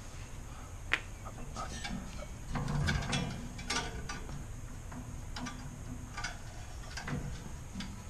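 Scattered clicks, taps and light knocks as a steel tow bar is lifted up on its hinge bracket and lowered again, with a sharp click about a second in and a cluster of knocks a little before the middle.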